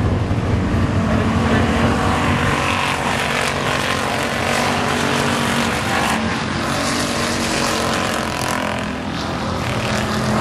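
A pack of IMCA hobby stock race cars running at speed, several engines going at once in a steady, loud mix.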